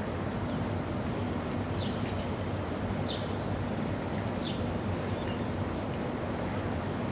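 Steady low hum of a 189-series electric train standing at the platform with its onboard equipment running. Short high bird chirps come several times over it.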